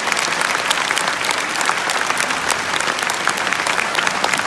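Large concert audience applauding: dense, steady clapping from many hands.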